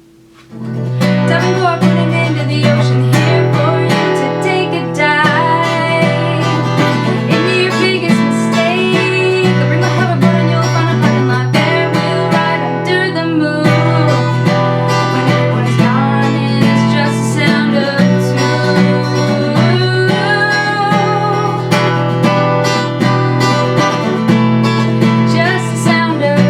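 Acoustic guitar music starts abruptly about half a second in and plays on at a steady level.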